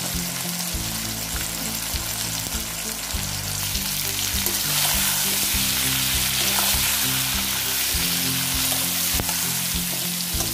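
Mango pieces sizzling as they fry in hot mustard oil in a karai, with a steel spoon stirring and scraping them. The sizzle grows louder about four seconds in.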